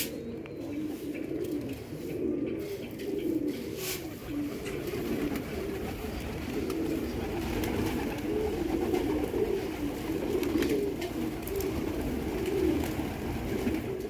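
A flock of domestic pigeons cooing in a dense, continuous chorus, with a sharp click about four seconds in.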